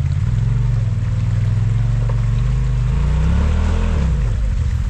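Side-by-side UTV engine running on a rock-crawl trail, its pitch rising briefly about three seconds in and then dropping back.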